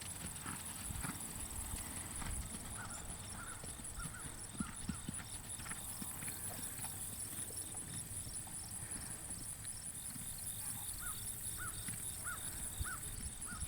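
Quarter horse gelding's hooves thudding on the ground in an uneven run of dull beats as it moves.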